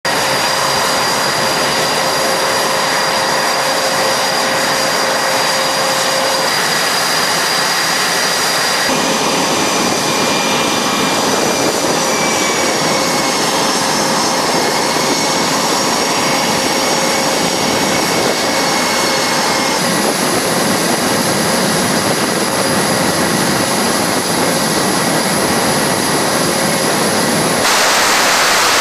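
F/A-18 Super Hornet jet engines, twin General Electric F414 turbofans, running on a carrier flight deck: a loud, steady rush with high turbine whines whose pitch shifts a few times.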